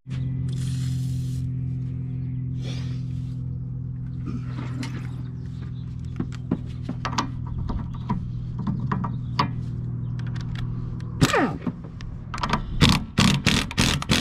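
Wrench work on the front strut's lower bolts: a steady low mechanical hum for most of the time, then, about eleven seconds in, a quick run of sharp metallic clicks and knocks.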